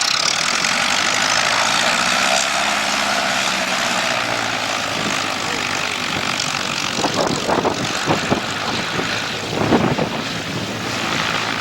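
Small propeller airplane's engine running steadily at high power.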